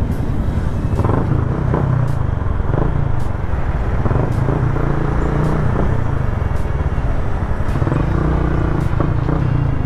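Yamaha Sniper 150's single-cylinder four-stroke engine running as the motorcycle rides along, its note shifting a little in pitch, under steady road and wind noise.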